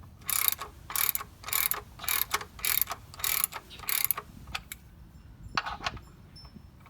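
Ratchet wrench cranked in short back-and-forth strokes, about seven rapid rasping bursts in the first four seconds, then a pause and another stroke near the end, tightening an oversized oil drain plug with a rubber seal into the oil pan.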